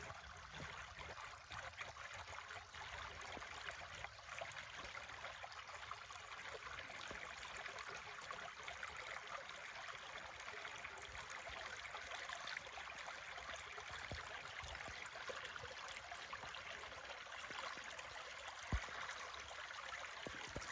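A small creek trickling and gurgling steadily over stones. A single short knock sounds near the end.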